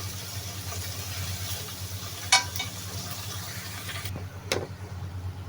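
Food sizzling and being stirred in a hot wok, with a loud ringing clank of metal on metal about two seconds in. The sizzling cuts off suddenly about four seconds in, followed by a smaller knock, as the cooking is finished. A steady low hum runs underneath.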